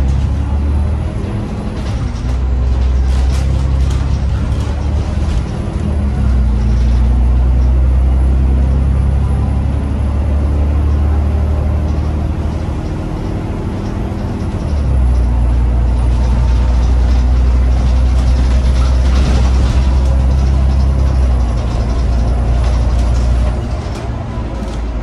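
Cummins diesel engine of an Alexander Dennis Enviro 500 MMC double-deck bus under way, heard from inside the cabin: a loud, low drone that drops away briefly a few times as the bus shifts gear or eases off, along with road and body rattle.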